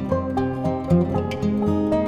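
Background music: plucked acoustic guitar playing a melody over sustained notes.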